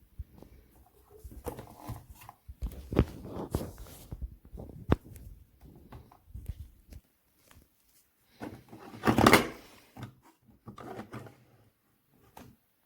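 Irregular handling noises: scattered clicks, knocks and rustling, with a louder rustling scrape about nine seconds in.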